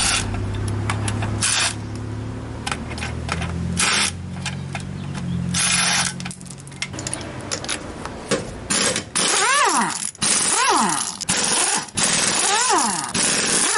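Cordless impact driver running and hammering as it backs out the small bolts of a wheel's center cap. From about nine seconds in, an air impact wrench spins the lug nuts off in short bursts, its pitch sweeping up and down with each burst.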